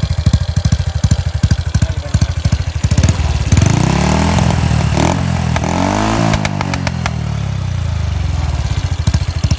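Small 110 cc motorcycle engine with an aftermarket exhaust pipe idling in even, lumpy pulses. About three and a half seconds in it is revved up and down twice, then settles back toward idle near the end.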